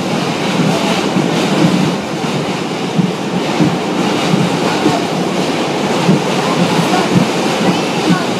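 New York City subway train running, heard from inside the car: a loud, steady rumble and rattle of wheels on track.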